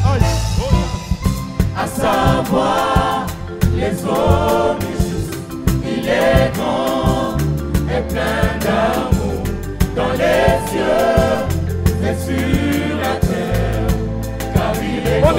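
Gospel choir singing a worship song in phrases of a few seconds each, over a live band with sustained bass notes and drums.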